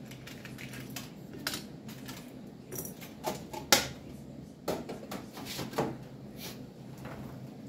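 Scattered small clicks and rattles of a black plastic case being handled and USB flash drives taken out of it, the sharpest click a little before the middle, over a low steady hum.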